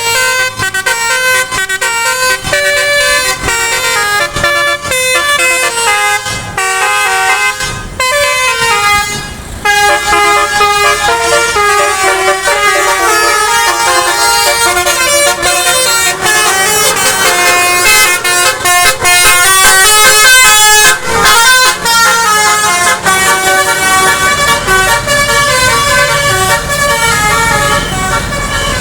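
Indonesian 'telolet' bus horns, multi-tone air horns playing melodic tunes, several sounding over one another in a horn battle, stepping rapidly from note to note. A low rumble grows underneath near the end.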